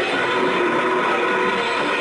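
Live heavy metal band playing loud: a dense, unbroken wall of distorted electric guitars.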